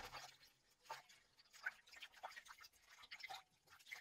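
Faint water splashes and drips as hands rub a peeled old cucumber clean in a steel bowl of water: a handful of soft, separate splashes.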